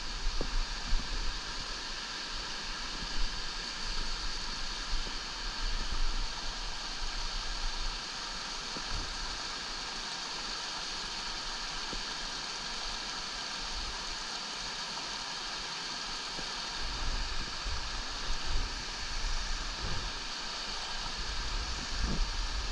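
Water rushing over the boulders of a small mountain creek: a steady hiss from its cascades. Low rumbling on the microphone comes and goes in the first few seconds and again near the end.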